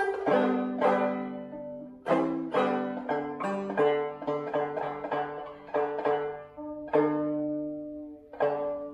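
Five-string banjo played clawhammer style: a steady run of plucked notes, each with a sharp start and a ringing tail, with lower notes sounding on beneath the tune.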